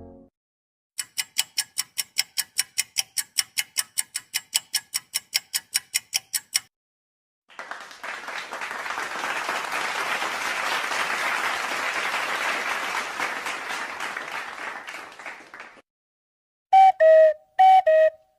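Clip-to-clip sound effects. First an alarm clock beeping rapidly, about four or five beeps a second for several seconds. After a short gap comes applause that swells and fades, and near the end three short tonal blips.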